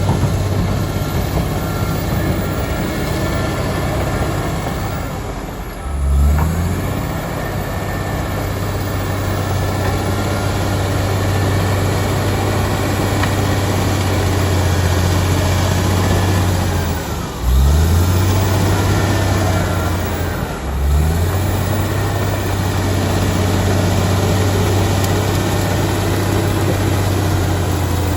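Komatsu D85EX bulldozer's diesel engine running steadily under load. Three times its note drops sharply and then climbs back up.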